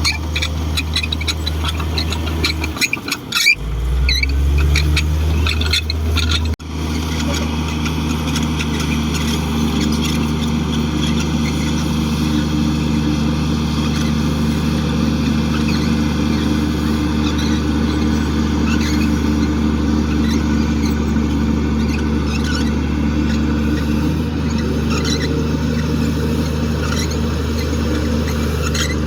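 Komatsu D58 bulldozer's diesel engine running steadily under load, its note dropping and then rising to a higher pitch about three to four seconds in, with high metallic squeaks in the first few seconds.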